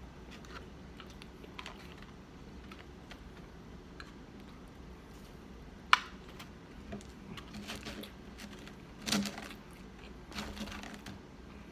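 Close-up eating sounds: quiet chewing and small clicks and crackles, with one sharp tap about six seconds in and louder crunchy stretches near the end.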